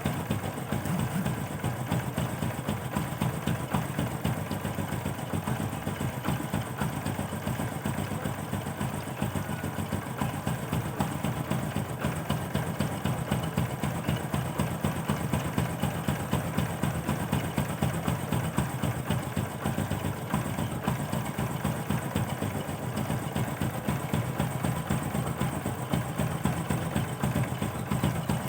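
Honda Supra X 125 motorcycle's single-cylinder four-stroke engine idling steadily on its stock exhaust.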